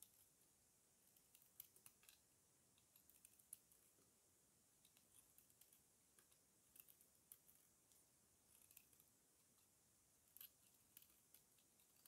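Utility knife blade shaving a bar of dry soap: faint, irregular crisp clicks and scrapes as curls and crumbs break off.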